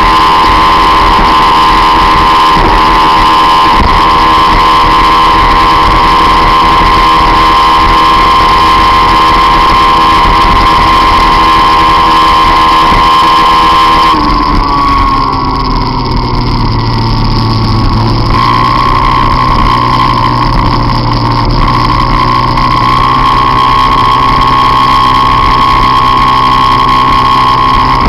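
Peugeot Jetforce Compressor supercharged scooter engine running at a steady high pitch while riding. About halfway through the pitch falls away for a few seconds, then settles back to a steady high pitch.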